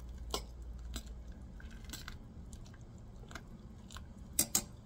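A metal spoon stirring nokedli dumplings in a pot of boiling water: scattered light clicks of the spoon against the pot over a low steady rumble from the boil, with two louder clicks near the end.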